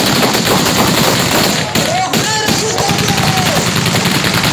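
Rapid automatic gunfire, shot after shot without a break. Men's voices shout over it from about two seconds in.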